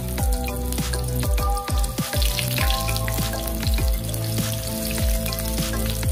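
Breaded eggplant sizzling as it fries in hot oil in a pan, a steady crackling hiss. Background music with a regular beat plays over it.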